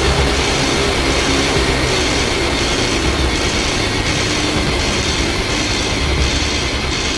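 Loud, dense, rumbling soundtrack music of the dark industrial kind, with a steady pulse of high hiss repeating roughly every three-quarters of a second over a low, churning rumble.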